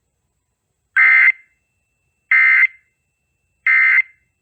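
Emergency Alert System SAME data bursts from NOAA Weather Radio: three short, identical, loud electronic screeches about a second and a half apart. They are the end-of-message code closing the severe thunderstorm warning.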